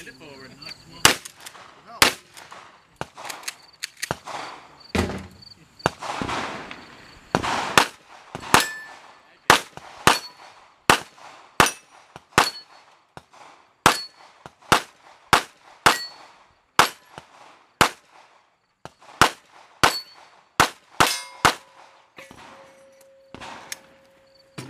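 A handgun fired in a long, steady string of shots, roughly one or two a second, many of them followed by the ring of steel targets being hit. The shooting stops a few seconds before the end, and a ringing tone hangs on after the last shots.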